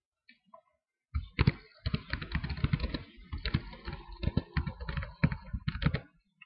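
Computer keyboard being typed on: a dense, rapid run of key clicks starting about a second in and lasting about five seconds.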